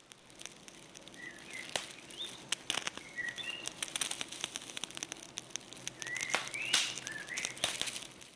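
Small birds chirping in short rising calls, over a dense run of sharp crackling clicks.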